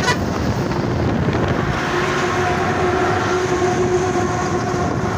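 Truck driving at highway speed, with steady road and wind noise while passing close alongside another truck, and a steady droning tone joining about two seconds in.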